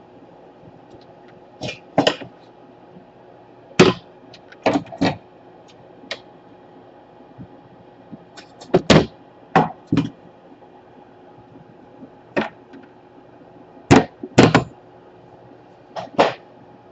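Irregular sharp knocks and clicks, some in quick pairs, of tools and parts being handled on a workbench during a laptop power jack repair.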